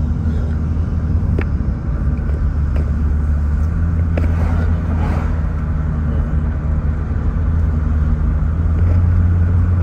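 Steady low rumble of engine and tyre road noise heard from inside a moving car's cabin, with a brief swell of noise as oncoming vehicles pass about five seconds in.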